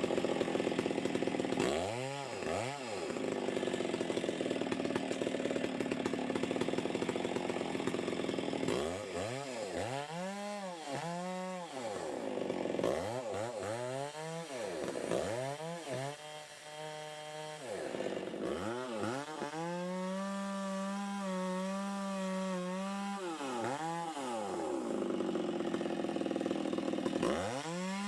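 Chainsaw bucking or cutting wood, its engine bogging under load in the cuts. Between cuts the throttle is revved up and dropped back several times. Near the end it is held at a high, steady whine for a few seconds.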